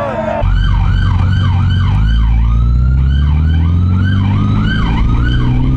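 Police car siren in a fast yelp, its pitch sweeping up and down about three times a second, over a loud low rumble that slowly rises in pitch.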